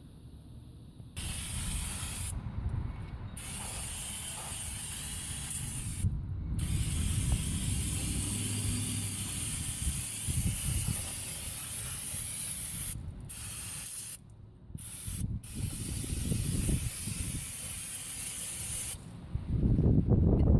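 Aerosol brake cleaner spraying in long hissing bursts, broken by a few short pauses, and stopping shortly before the end.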